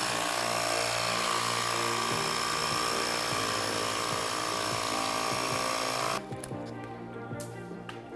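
Electric tire pump running steadily as it puts a little air into a 20x4 fat-bike inner tube to give it shape, then switching off about six seconds in. Background music plays under it.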